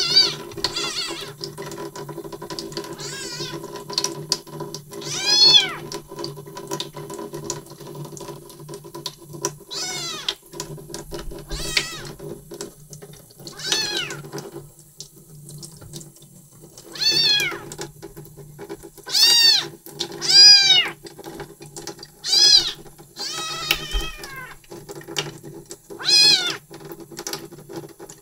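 Three-week-old white kitten mewing over and over in high, thin cries, about a dozen of them a second or two apart with a short pause midway. She cries while passing stool.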